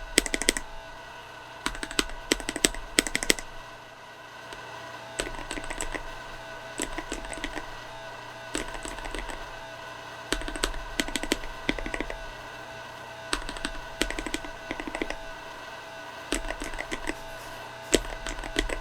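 Mechanical keyboard with Akko CS Matcha Green linear switches being typed on in bursts of rapid keystrokes, with short pauses between bursts. The switches are unlubed for the first few seconds; after a brief lull about four seconds in, the typing is on lubed switches.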